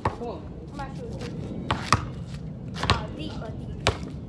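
Two basketballs being dribbled on a hard outdoor court: sharp bounces at an uneven pace, about six of them.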